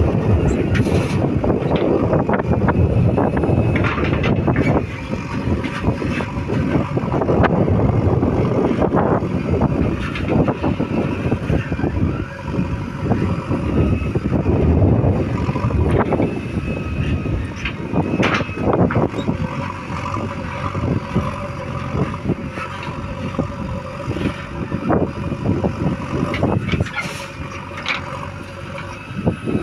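Diesel engines of a JCB 3DX backhoe loader and tractors running under load, with frequent short knocks and clanks over the steady engine noise.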